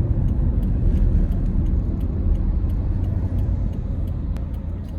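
Steady low road and engine rumble inside a 2010 Toyota Corolla's cabin while it is driven.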